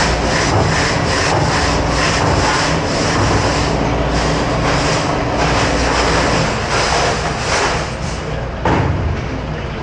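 Commercial conveyor dishwashing machine running: a steady hum under loud rhythmic hissing pulses of wash spray, about three a second, which die away about eight seconds in. A single short knock follows near the end.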